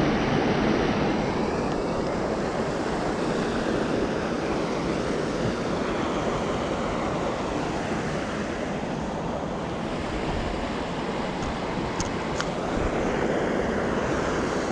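Wind buffeting the microphone as a steady rushing noise, with two light clicks near the end.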